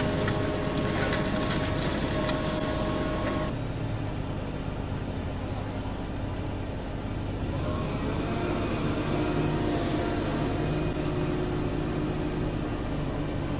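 Engines of heavy machinery running steadily, with an abrupt change in the sound about three and a half seconds in.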